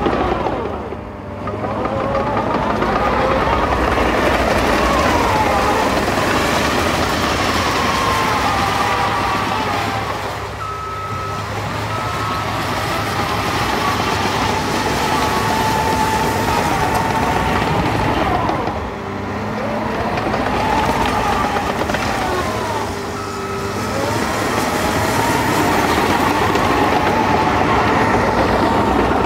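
Caterpillar 953D track loader's diesel engine running under load, its pitch rising and falling as the machine works, easing off briefly a few times. Its backup alarm gives short beeps twice along the way.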